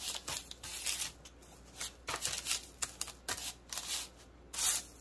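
Short, irregular rustles and scrapes of hands setting cut English muffin dough rounds onto cornmeal-dusted paper on a sheet pan.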